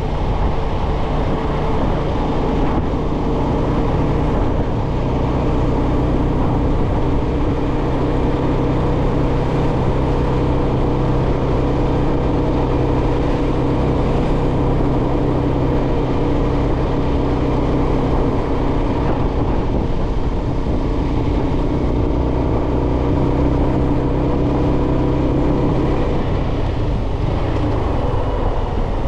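Yamaha XSR125's single-cylinder 125 cc four-stroke engine running at steady revs while the bike is ridden, its note dropping near the end.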